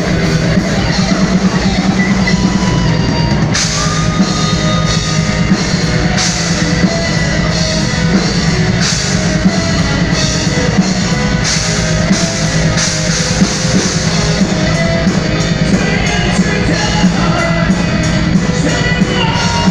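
Heavy metal band playing live, loud and continuous, with a driving drum kit and cymbal crashes coming every second or so through the middle.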